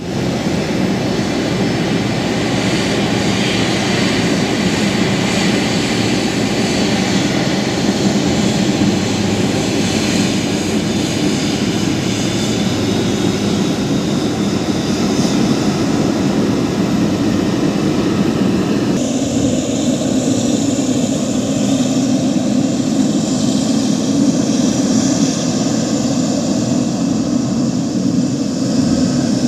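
Boeing 777-300ER's GE90 turbofan engines running as the airliner taxis past, a loud steady rumble with a hiss above it. About 19 seconds in the higher hiss drops away abruptly and the lower rumble carries on.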